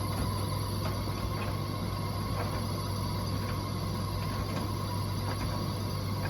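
Bosch Serie 4 WTN83200GB condenser tumble dryer running with a steady hum and faint, irregular clicks: the strange noise the machine is making.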